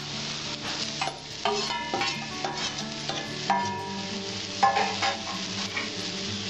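Bitter gourd, onion and fried potato strips sizzling in an aluminium kadai, with a metal spatula scraping and clinking against the pan as the potatoes are added and stirred in. The clinks come many times and ring briefly; the sharpest come a little after the middle.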